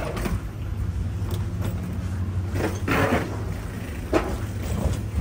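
Wheeled carry-on suitcase rolling along a jet bridge floor over a steady low hum, with footsteps, a few sharp knocks and a short rattling clatter about three seconds in.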